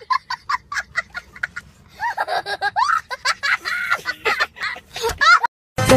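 A young child laughing hard, first in quick rapid cackles, then in higher, drawn-out squealing laughs. It cuts off suddenly near the end.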